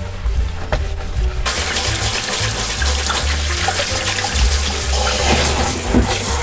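Kitchen faucet turned on about one and a half seconds in, water running steadily into a stainless steel sink and over a gloved hand and sponge being rinsed at the drain.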